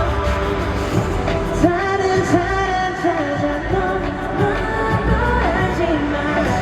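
Live K-pop song over a concert sound system: a voice singing a melody over a backing track with a steady drum beat.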